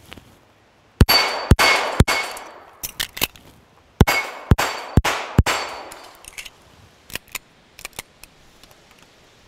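Handgun fired in two fast strings of shots at steel plates, three quick shots and then about four more, with the plates ringing as they are hit. Between the strings come a few lighter clicks of the speed reload, and scattered faint clanks follow.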